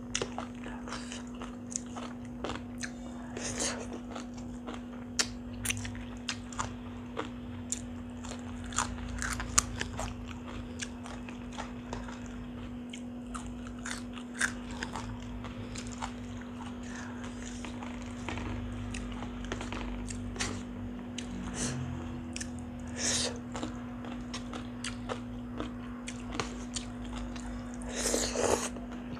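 Close-miked chewing of tam sua, a pounded salad mixed with rice noodles, eaten by hand: wet mouth sounds with many short, sharp crunching clicks. There is a louder burst as a mouthful of noodles goes in near the end, over a steady low electrical hum.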